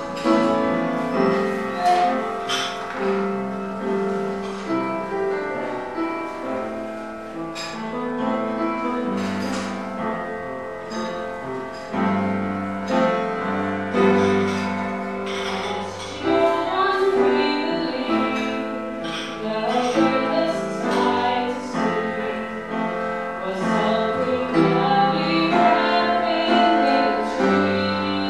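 A woman singing into a microphone over piano accompaniment.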